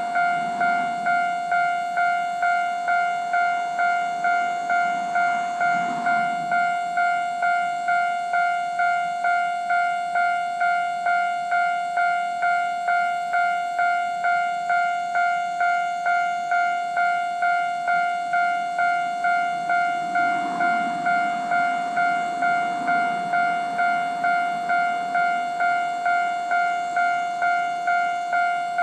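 Japanese railway level-crossing warning bell ringing: an electronic bell struck steadily about one and a half times a second, each strike fading quickly. A low rumble of a train swells briefly twice under it.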